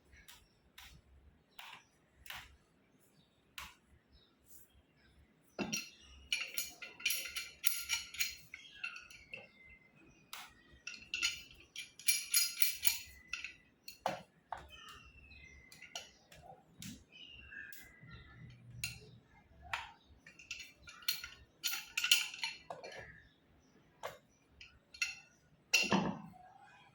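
Metal tools and fittings clinking and clattering during hand work, with scattered sharp clicks and several bursts of bright metallic rattling.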